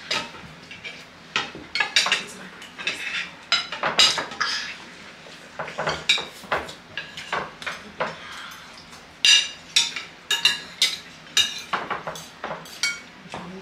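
Metal forks and spoons clinking and scraping on ceramic plates while food is scooped up: irregular clusters of sharp clinks, with a short lull partway through.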